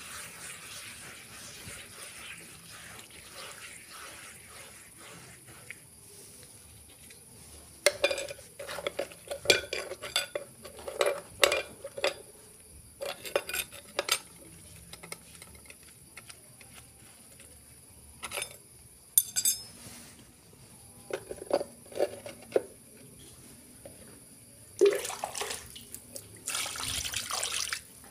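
Dishes being washed by hand: a spoon clinks and scrapes against a pan of soapy water in quick clusters, with water sloshing and scrubbing at the start and again near the end.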